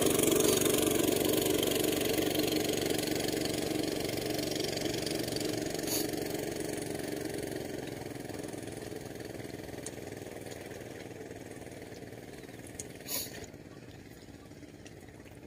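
A motor vehicle's engine, loud at first and fading steadily away. There is a light click about six seconds in and another about thirteen seconds in.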